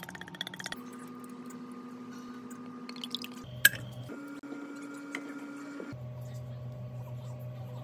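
Kitchen prep sounds across quick cuts. Eggs and milk are beaten in a bowl with fast, even strokes that stop just under a second in. A single sharp click comes about three and a half seconds in, then wet squishing as a slice of bread is soaked in the beaten egg.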